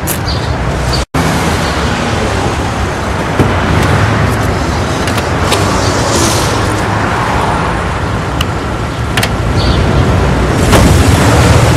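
Steady road-traffic noise of cars, with a sudden momentary dropout about a second in.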